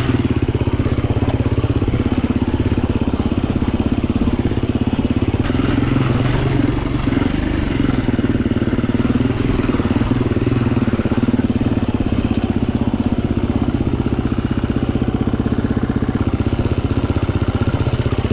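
Gas Gas 350 dirt bike's single-cylinder four-stroke engine running at steady revs, a rapid even firing pulse, heard from on the bike as it is ridden along a rutted dirt trail.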